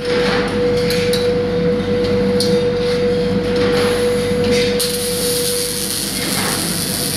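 Workshop din with a steady hum and scattered metal knocks as steel furniture tubes are clamped into a welding jig. About five seconds in, a robot's MIG welding arc strikes and runs with a steady, high-pitched crackling hiss.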